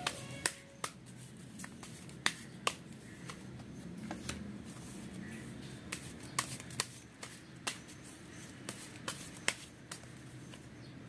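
A Rider–Waite tarot deck being handled: cards slid and flicked off the deck and laid down, with a dozen or so sharp card snaps at irregular intervals.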